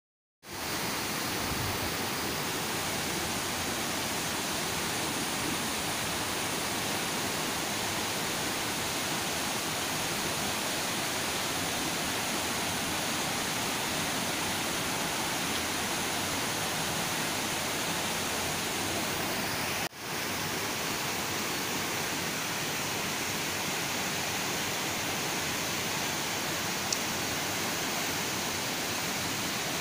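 Swift, swollen river rushing over a rocky bed: a steady, even rush of water that starts suddenly about half a second in and drops out for an instant about two-thirds of the way through.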